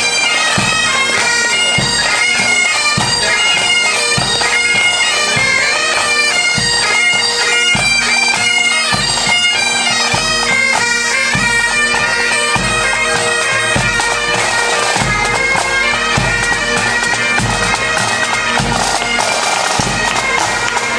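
Pipe band playing on the march: Great Highland bagpipes sounding their steady drones under the chanter melody, with drums beating time.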